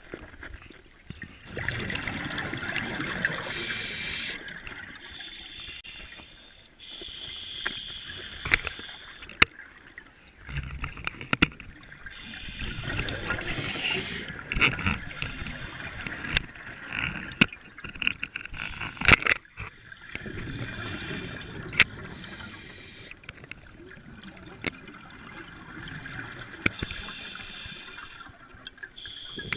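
Scuba diver breathing through a regulator underwater: surges of breath and bubbling every few seconds, alternating with quieter gaps, with a few sharp clicks.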